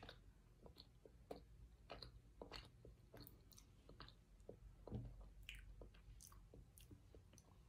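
Faint chewing of baked cornstarch brick pieces: soft, irregular crackles and clicks, with one louder crunch about five seconds in.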